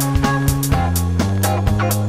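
Background music with a steady drum beat, a bass line and guitar.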